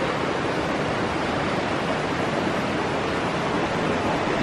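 Creek water rushing steadily, an even hiss with no breaks.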